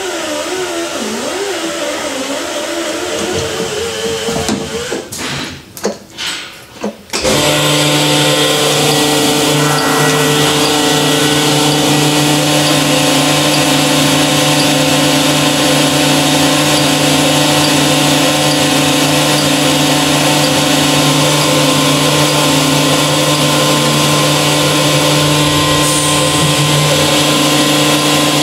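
Cylinder honing machine running as it hones the bores of a Toyota G16E three-cylinder engine block. For the first few seconds its pitch wavers and shifts; it drops out in short gaps about five to seven seconds in, then settles into a steady hum with several fixed tones.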